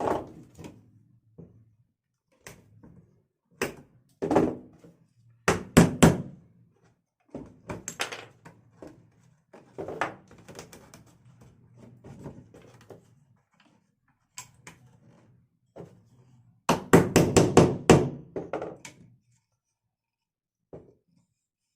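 Irregular wooden knocks and taps as small wooden parts of a birdcage are handled and fitted, with three hard knocks about six seconds in and a quick flurry of taps near the end.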